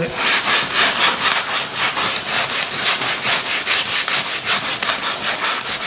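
Folded coarse sandpaper rubbed by hand over the edge of a purple foam block in quick back-and-forth strokes, about three a second, rounding off a cut chamfer.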